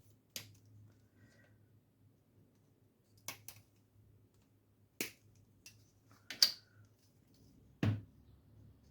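Hobby sprue clippers snipping plastic miniature parts off the sprue: about half a dozen short, sharp clicks at irregular intervals, the loudest about six and a half seconds in.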